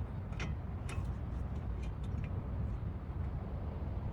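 A few light metallic clicks and taps as a brake caliper is fitted back over new pads, over a steady low background rumble.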